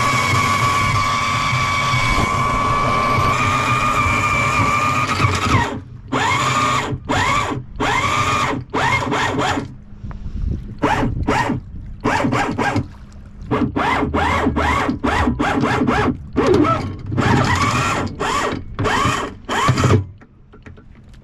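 Electric anchor windlass hauling in the anchor chain: a steady motor whine for about five seconds, then a string of short bursts, each starting with a rising whine, as the windlass is run in short jogs.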